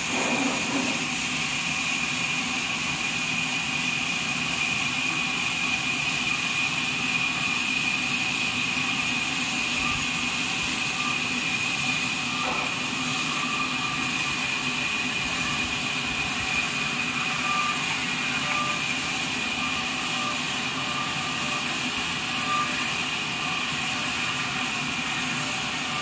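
Horizontal band sawmill running steadily, a constant mechanical hum with a high whine held at one pitch.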